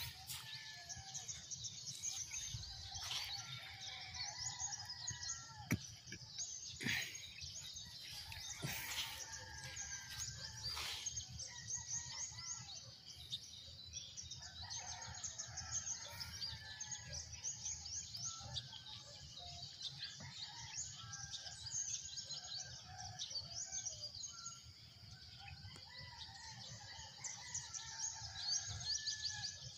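Many small birds chirping and twittering in quick, high, overlapping calls, with a few louder sharp calls between about six and eleven seconds in, over a low steady rumble.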